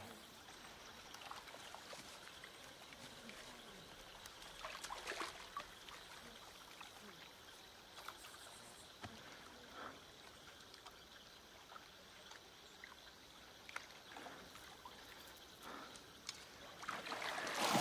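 Quiet night jungle ambience with a faint steady trickle of water, broken by a few brief soft sounds. It grows louder over the last second or so.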